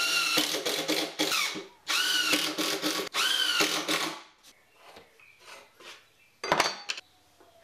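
Cordless impact driver driving screws into a plywood top: three short runs in the first four seconds, the motor whining up and winding down each time. A brief clatter about six and a half seconds in.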